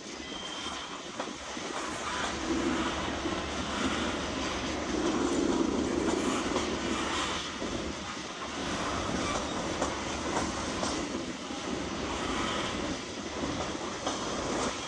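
Slow freight train of loaded coal gondolas rolling past, with a steady rumble and clatter of its steel wheels on the rails.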